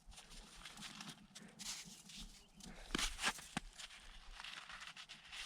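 A dog eating snow: faint crunching, with a few sharper crunches about three seconds in.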